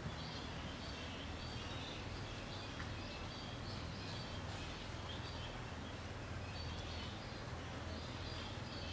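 Outdoor ambience: small birds chirping on and off in the background over a steady low rumble.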